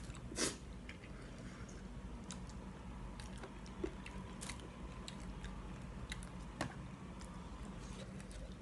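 A person chewing a mouthful of instant noodles, with scattered soft mouth clicks and one sharper click about half a second in.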